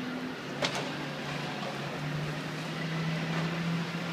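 Street traffic noise: a steady engine hum that grows a little louder about two seconds in, with a single sharp knock a little over half a second in.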